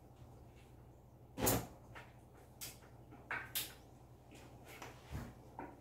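Irregular knocks and bumps as things are handled on top of a wooden wardrobe, the loudest about a second and a half in, with several lighter ones after it.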